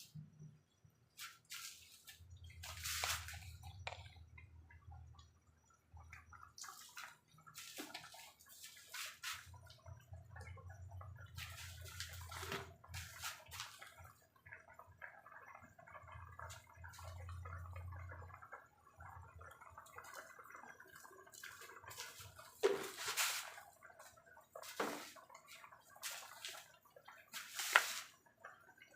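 Water splashing and dripping in a kitchen, with scattered sharp clicks and knocks of handling, and a low steady hum in three stretches.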